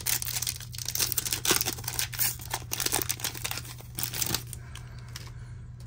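Topps Chrome baseball card pack wrapper crinkling and tearing as it is opened by hand: a dense crackle that dies down about four and a half seconds in, over a steady low hum.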